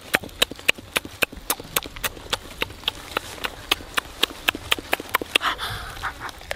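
A person chewing roast chicken with loud mouth smacks: a fast run of sharp wet clicks, about five a second, that thins out after about five seconds.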